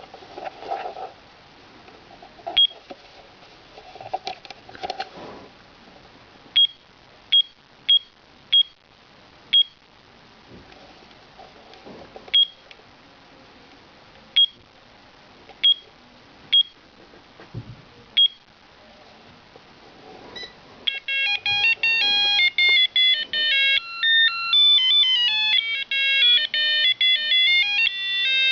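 Pooh Bear PB02 LED digital alarm clock giving about a dozen short high beeps, spaced irregularly as its buttons are pressed, then about two-thirds of the way through starting to play its electronic alarm melody of quick stepped beeping notes.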